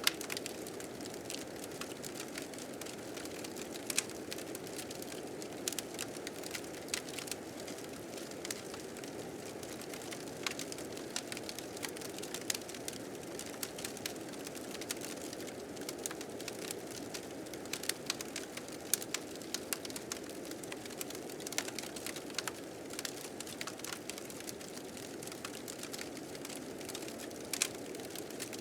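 Wood fire crackling with frequent sharp, irregular pops over a steady rushing of blizzard wind.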